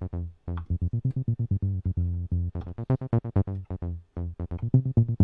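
Korg Electribe EMX synth part set up to imitate a Roland TB-303, playing a sequenced acid bassline of short staccato notes, several a second, with a few brief gaps. The filter envelope and drive have just been dialled in, a first step toward the 303 sound.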